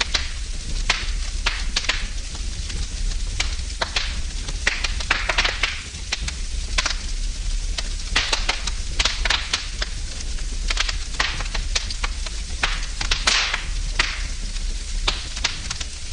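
Wood fire burning in a fireplace, crackling and popping irregularly over a steady hiss and low rumble.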